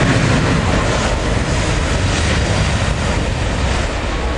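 Airbus A380 jet engines running loud as the airliner moves along the runway, a steady heavy rumble that eases slightly near the end.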